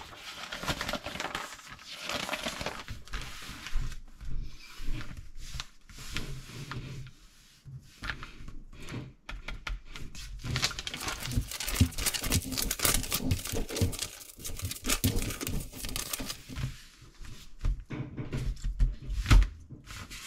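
Paper pages of a LEGO instruction booklet rustling and crinkling as they are handled and turned, with many quick clicks. Low thumps come and go, the loudest near the end.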